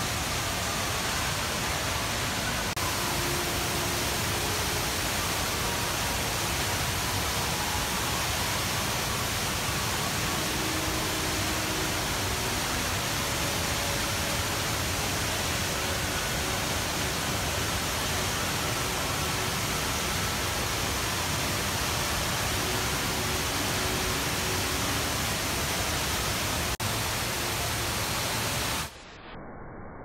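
Steady rushing of the Rain Vortex, a tall indoor waterfall pouring down into its pool, with a faint murmur of distant voices. About a second before the end it drops abruptly to a quieter, muffled rush.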